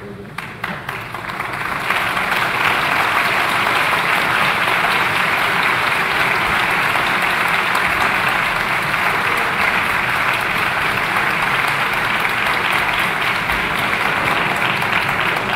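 A large assembly of legislators applauding, the clapping building over the first two seconds and then holding steady.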